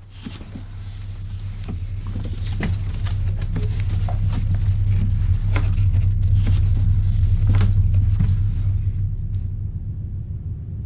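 A deep, steady low rumble that swells in loudness over the first few seconds, with scattered sharp clicks and crackles over it; the clicks die away about nine seconds in while the rumble goes on.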